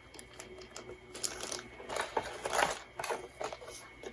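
Paper and cardboard packaging being handled: rustling that swells near the middle, with scattered small clicks and taps.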